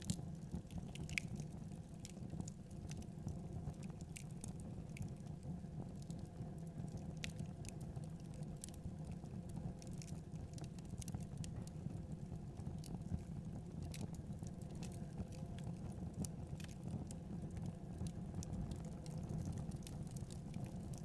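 Wood fire crackling in a fireplace: irregular sharp snaps and pops scattered over a steady low rumble of burning.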